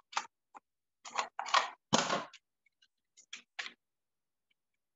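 Plastic clicks and clacks of a Tupperware mandoline slicer being worked by hand, its safety lock and blade mechanism pushed and twisted, with the loudest clack about two seconds in. The blades are not coming up because a second safety is still engaged.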